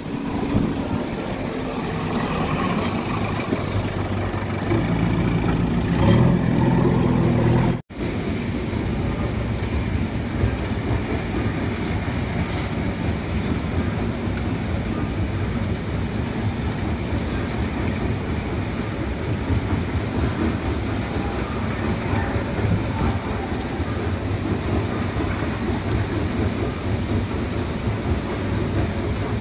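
Diesel engine of a JCB 3DX backhoe loader running close by, revving up around five to seven seconds in. After a sudden brief cut-out near eight seconds, a steady engine rumble carries on.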